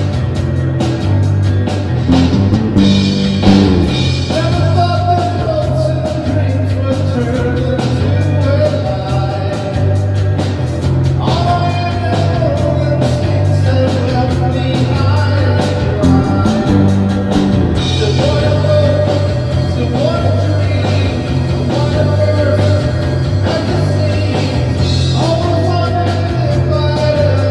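A three-piece rock band playing a space-rock/shoegaze song: echo- and reverb-drenched electric guitar over a steady bass line and drum kit, with sung vocals.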